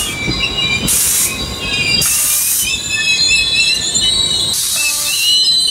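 Commuter train's passenger cars rolling past, steel wheels squealing on the rails in a steady high-pitched squeal, with several short bursts of hiss.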